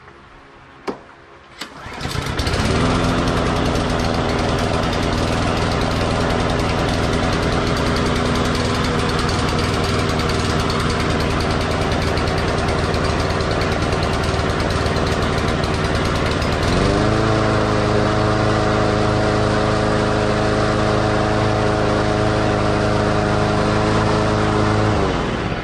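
Cub Cadet SC500K lawn mower's 173cc engine starting from cold on choke: a sharp click, then the engine catches about two seconds in and runs steadily. About two-thirds of the way through it speeds up to a higher, steady pitch, and near the end it winds down and stops.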